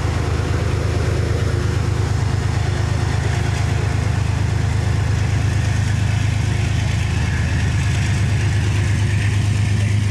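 Diesel locomotive of a Metro-North push-pull train running steadily alongside the platform, a deep engine hum.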